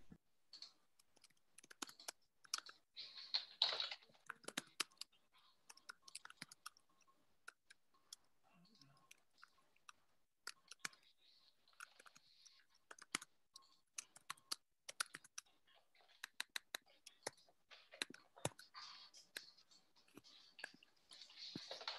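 Faint, irregular clicking of a computer keyboard and mouse being typed and clicked at a desk, with pauses and a few short soft rustles between the clicks.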